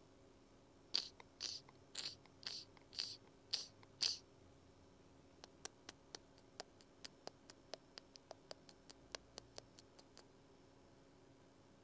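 Sparse, faint cartoon sound effects: seven short scratchy rasps about half a second apart, then a run of light, quiet clicks about three a second that stops shortly before the end.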